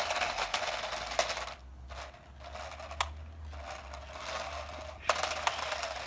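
Small toy RC stunt car driving on a concrete driveway: its electric motor, gears and plastic wheels make a hissing whir that comes in stretches with short gaps, with a few sharp clicks.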